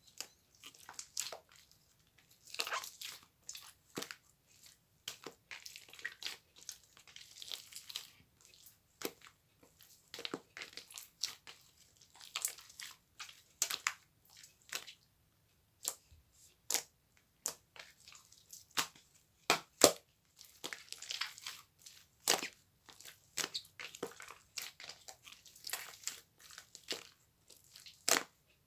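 Irregular close-up crunching and crackling: sharp clicks and short crinkly bursts at uneven intervals, as something is crushed or handled near the microphone.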